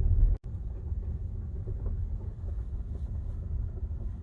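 Low rumble of a car rolling slowly over a gravel road, heard from inside the cabin. The sound cuts out for a moment a little under half a second in and comes back quieter.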